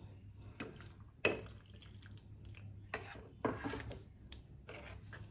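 A steel spoon stirring a thin curry in a stainless steel pot: wet stirring with a few light clinks and scrapes of spoon against the pot.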